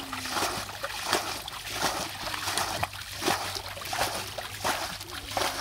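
Hands groping and splashing in shallow muddy water while fishing by hand: irregular wet splashes and sloshes, several a second.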